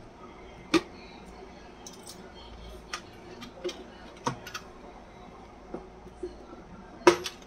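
Scattered sharp clicks and knocks of a cow-shaped coin bank being unlocked and handled as it is opened. The loudest click comes about three-quarters of a second in, with a sharp pair near the end.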